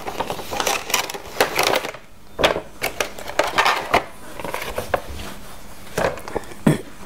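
Cardboard box and clear plastic blister tray being handled while the box is opened and the tray slid out and set down: irregular rustling, scraping and sharp clicks of cardboard and plastic.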